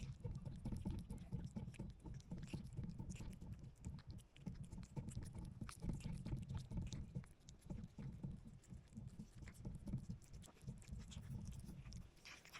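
Cat eating food close to the microphone: low chewing with many small crunches and clicks throughout.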